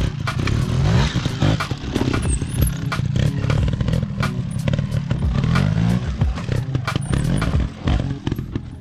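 Trials motorcycle engine revving up and down in quick blips as the bike is ridden slowly over rocks, with frequent sharp clattering knocks.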